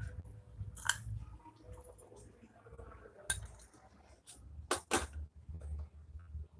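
A few light clinks and knocks of a metal spoon and kitchen containers: one about a second in, another past the middle, and two close together near the end, over a soft low rumble.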